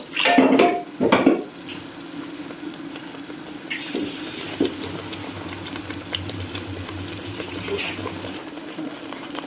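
Water poured into a pan of simmering tomato sauce and stirred in with a metal spoon, the sauce bubbling and sizzling in the pan, with a short brighter hiss about four seconds in.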